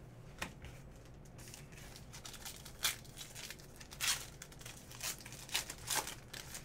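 A Panini trading-card pack wrapper being torn open and crinkled by hand, in a series of short, sharp rustles and tears.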